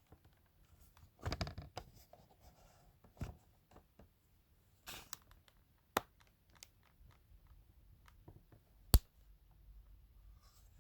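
Scattered handling noises of objects being moved and worked by hand: light scrapes, rustles and small clicks, with one sharp, loud click about nine seconds in.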